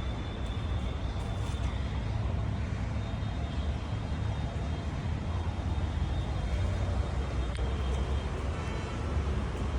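Royal Enfield Bullet Electra's single-cylinder engine running steadily through an aftermarket bend pipe and changed silencer, giving a loud, low exhaust note.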